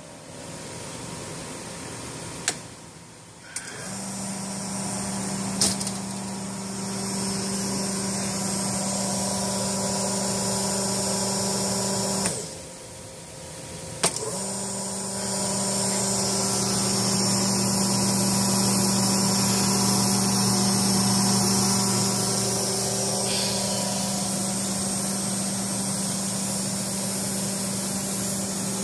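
Schaefer Model-10 capsule filling machine's motor and vacuum running with a steady hum and hiss. It starts after a click about four seconds in, cuts out around twelve seconds, and comes back on with a switch click around fourteen seconds as the vacuum switch is turned.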